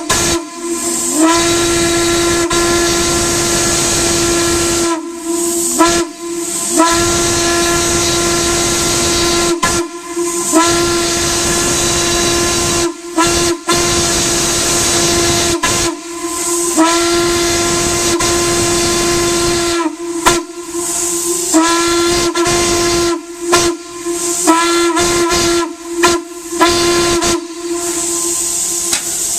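Steam whistle blown in a series of blasts: several long ones of two to four seconds, then a quick run of short toots near the end, each blast starting with a brief scoop up in pitch. A steady hiss of steam runs underneath.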